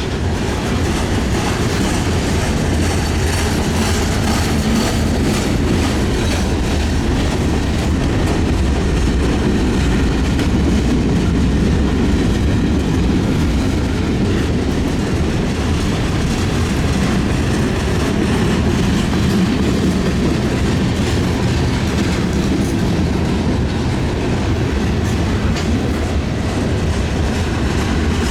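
Freight train cars rolling steadily past at low speed, their wheels clacking over the rail joints under a continuous low rumble.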